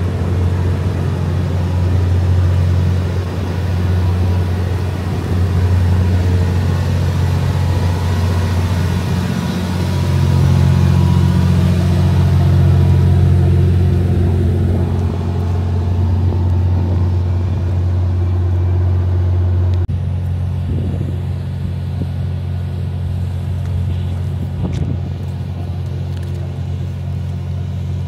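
Steady low engine hum of the JR West 87 series Twilight Express Mizukaze, a diesel-electric hybrid train, idling while it stands at the platform. It grows a little quieter about two-thirds of the way through.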